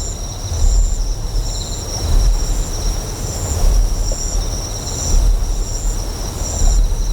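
Deep generator hum, pulsing with a swell about every second and a half, under insects chirping in high, evenly repeated pulses.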